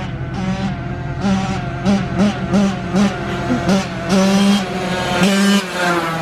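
Dirt bike engine revving hard in a run of quick throttle blips, its pitch rising and falling two or three times a second.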